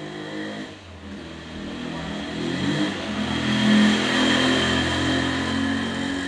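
A motor vehicle's engine, growing louder to a peak about four seconds in and then easing off, like a vehicle passing close by.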